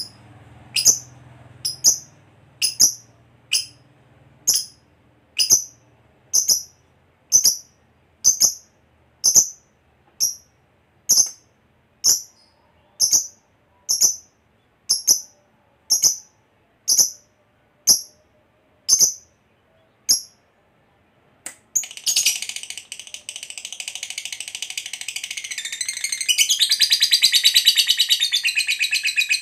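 Lovebird giving short, sharp high chirps about once a second, then about 22 s in breaking into a long, unbroken rapid chatter, the prolonged 'ngekek panjang' trill that lovebird keepers prize.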